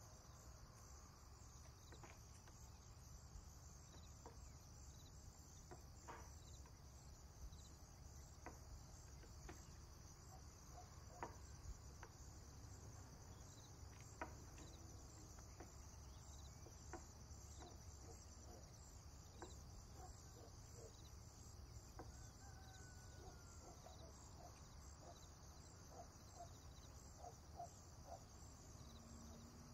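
Near silence: faint, scattered light taps and clicks of a wooden rolling pin and dough on a wooden board as the dough is rolled flat, over a steady faint high-pitched hiss.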